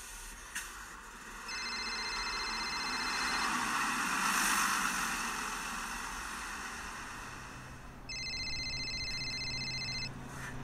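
A phone ringing twice with a fast electronic trill, each ring about two seconds long, over street traffic noise that swells and fades around the middle.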